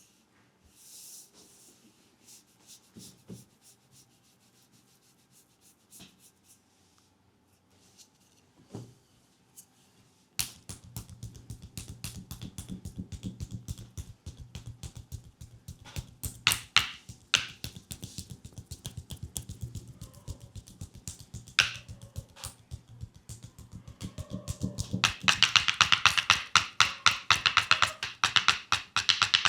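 Rapid, continuous percussive tapping strikes of a leg massage, starting about ten seconds in after a few quiet soft rubs and growing louder and denser near the end.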